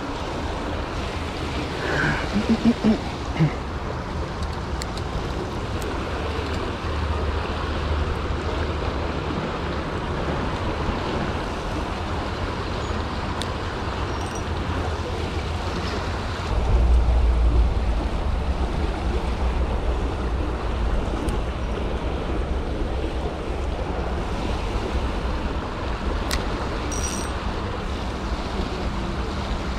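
Steady rush of a fast-flowing river running over rocks, with wind buffeting the microphone, heaviest for a moment about seventeen seconds in. A few short, louder sounds stand out about two to three seconds in.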